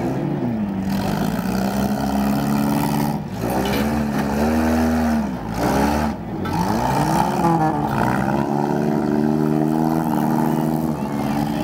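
Demolition derby cars' engines revving hard, the pitch rising and falling again and again as the drivers accelerate and back off.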